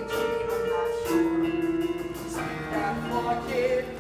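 Live band music from piano, guitar and drums, with long held notes and a steady drum beat.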